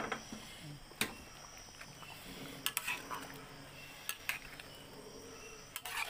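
Metal spatula clinking and scraping against a wok while stirring cassava leaves in hot water, with several sharp clinks at irregular intervals.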